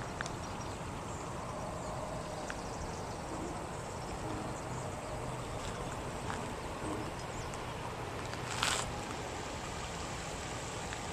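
Steady outdoor background noise with a low rumble of wind on the microphone and a faint low hum. A brief hiss about nine seconds in.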